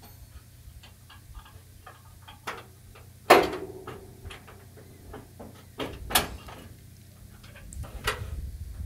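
Small clicks and ticks of a screw being driven by hand into a truck grille's fittings, with three sharper metal clacks about three, six and eight seconds in.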